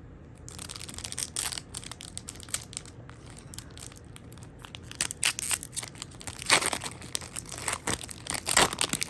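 Foil wrapper of a Pokémon card booster pack crinkling and tearing as it is ripped open and handled, in irregular crackles that are heaviest in the second half.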